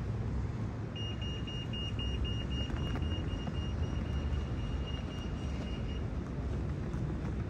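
Steady low rumble of a riverboat's engine and wind. About a second in, a quick run of high electronic beeps starts and goes on for about five seconds, getting fainter.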